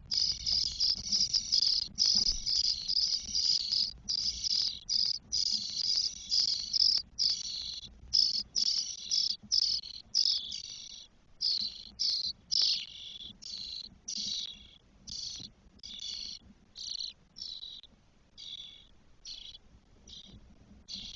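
Spotless starling nestlings giving harsh, raspy begging calls: a near-continuous chorus at first that breaks into separate calls, about one or two a second, growing fainter toward the end.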